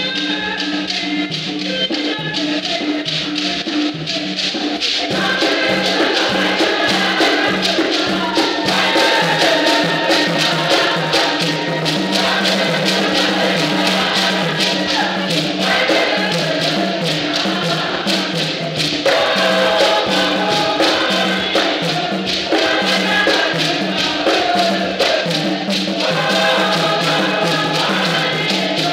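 Traditional Kom church choir singing, with hand percussion keeping a steady, even beat. The music grows louder and fuller about five seconds in.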